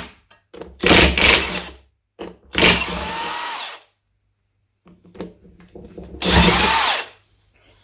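Cordless brushless impact wrench undoing the big-end cap nuts on a Triumph Trident T150V crankshaft's conrod. It runs in three bursts of about a second each, the last after a short pause.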